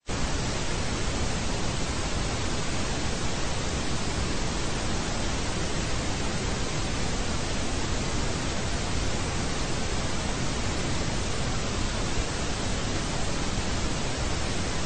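Steady static noise: an even, featureless hiss spread from low to high pitches, with no rhythm or change.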